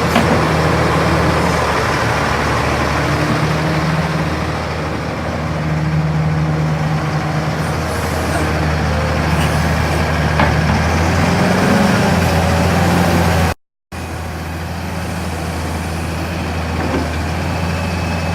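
Caterpillar 235C excavator's diesel engine running steadily with a deep, even note. Its pitch lifts briefly about two-thirds of the way through, and the sound cuts out for a moment shortly after before the engine carries on.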